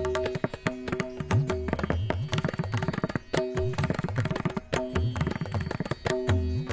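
Background music: a fast hand-drum rhythm with low strokes that bend in pitch, over held melodic notes.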